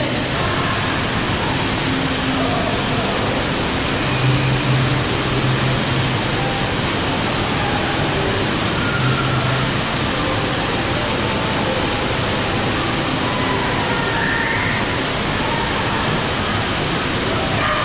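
Steady, even rushing noise of falling water.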